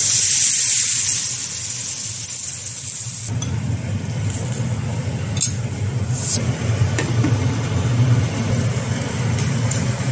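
Soy-based sauce poured into a hot skillet of stuffed fried gluten balls, sizzling with a bright hiss for about three seconds before cutting off abruptly. After that a steady low hum continues, broken by a few light ticks.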